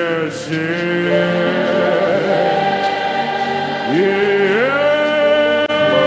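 Slow gospel worship music with wordless voices holding long notes. About four seconds in, a sound slides upward into a new held note.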